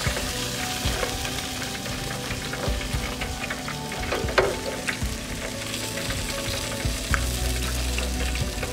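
Hot oil in a deep fryer sizzling and crackling around cornmeal-battered croaker fish in the wire fryer basket, with a few sharp clicks now and then.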